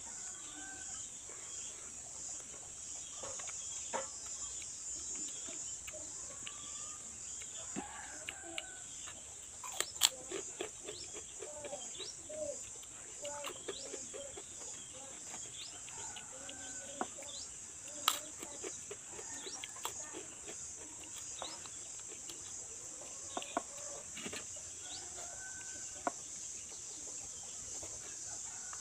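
Chickens clucking now and then, over a steady high hiss, with a few sharp clicks, the loudest about ten and eighteen seconds in.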